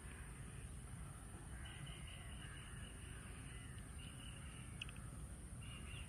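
Crows cawing faintly a few times over a low, steady outdoor rumble.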